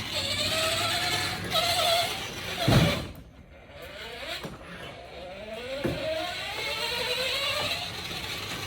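The electric drive motors of a remote-controlled ice chest running now that it has a new battery. Their whine rises in pitch each time it speeds up, several times over, with one thump about two and a half seconds in.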